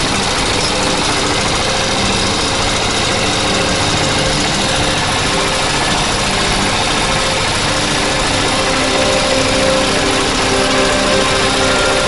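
Engine of a small open-frame, tractor-like vehicle running steadily while it is driven along.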